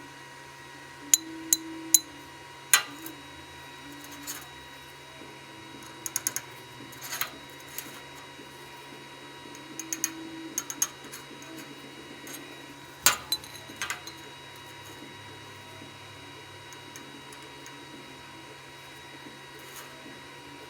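Irregular sharp metallic clinks and knocks, some in quick clusters, over a faint steady hum: metal pieces being handled and set down on a work surface.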